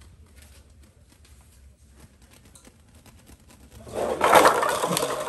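Paper cups rattling and tipping as a cat walks onto a floor covered in them: faint light taps at first, then a sudden loud clatter of cups knocked over about four seconds in, a light sound like bowling pins falling.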